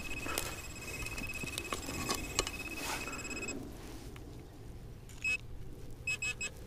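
Metal detector signal tone while pinpointing a buried target: a steady high electronic tone that cuts off about halfway through, then a short beep and a quick run of beeps near the end.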